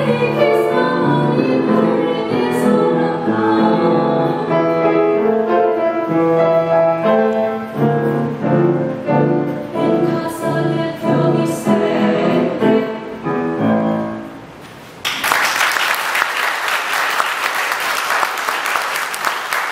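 A woman singing a classical song with piano accompaniment; the music fades out about 14 seconds in, and about a second later applause breaks out and continues.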